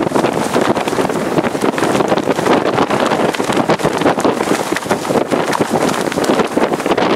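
Hurricane-force wind buffeting the microphone: a loud, continuous rush broken into rapid, ragged gusts.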